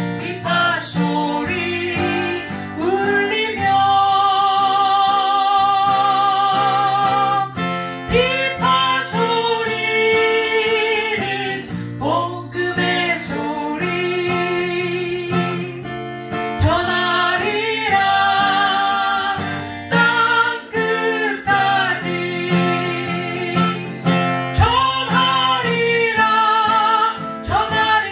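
A woman sings a Korean gospel song with vibrato on the held notes, accompanied by a strummed acoustic guitar.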